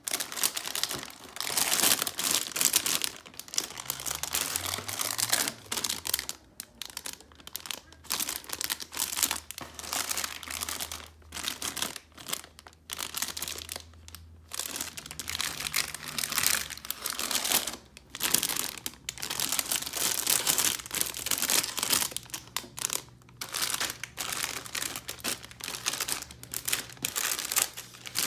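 Clear plastic bags holding plastic model-kit runners crinkling as they are handled, lifted out of the box and laid down, in irregular bursts with short pauses between.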